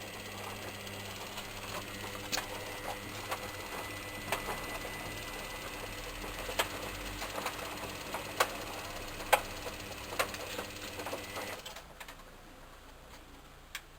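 Hoover Inter@ct washing machine running, its motor (a replacement taken from a Candy Alisée) turning the drum with a steady hum and scattered clicks and knocks. About twelve seconds in, the motor stops and the sound drops away.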